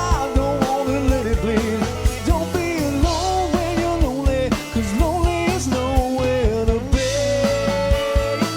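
Live country band playing loud and steady, with drums and a lead line that bends in pitch over a sustained bass.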